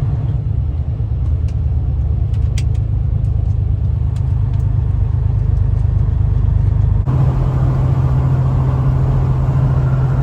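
Semi-truck diesel engine droning steadily with road noise, heard inside the cab while cruising on the highway. A few faint clicks come in the first seconds, and about seven seconds in the drone changes abruptly to a steadier, louder hum with more road noise.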